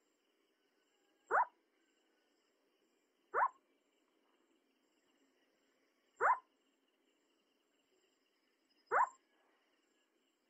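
Owl giving short, sharp calls, four of them two to three seconds apart, each dropping quickly in pitch. A faint steady insect trill runs underneath.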